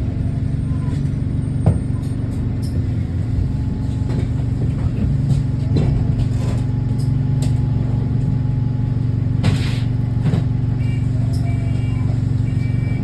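Bus engine running steadily under way, heard from inside the cabin, with the exhaust leak in its note; a few knocks and rattles from the bodywork, and short high beeps near the end.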